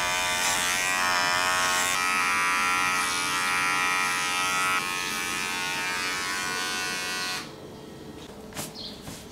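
Electric hair clipper with a comb guard buzzing steadily as it cuts short hair, then stopping abruptly about seven seconds in; a few light taps follow.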